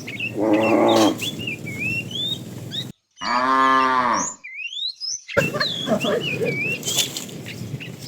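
Cows mooing twice: a short moo about half a second in and a longer one from about three seconds in that rises and falls in pitch, just after a brief dead gap. Small birds chirp throughout.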